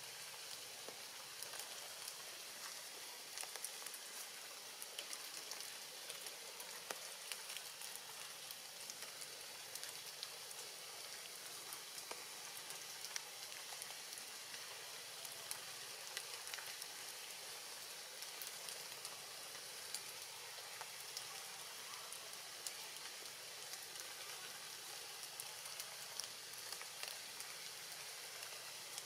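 Steady light rain falling on forest foliage: an even hiss with scattered drops ticking.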